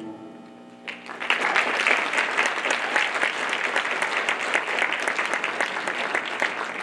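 The last chord of the music fades, and about a second in an audience starts applauding, a dense, steady clapping.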